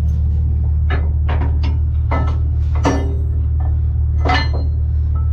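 Truck diesel engine idling with a steady low drone, and about six sharp metallic clinks over it, some ringing briefly.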